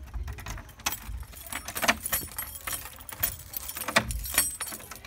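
A bunch of keys jangling, with several sharp metallic clicks as a key works the front door's lock.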